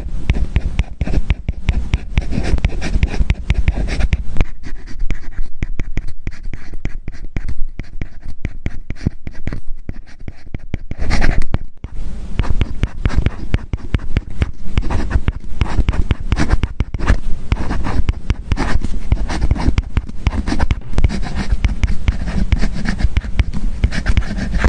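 Apple Pencil tip scratching and tapping across an iPad fitted with a paper-like matte screen protector: continuous handwriting strokes, with a brief pause about twelve seconds in.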